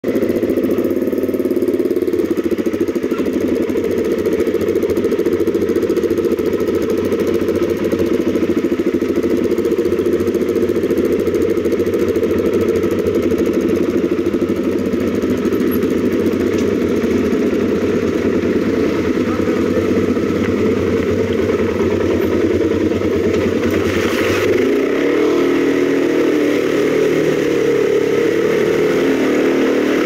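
Dirt-bike engine running steadily as the motorcycle rides along a rough dirt track, heard from on the bike itself. Near the end the engine note changes.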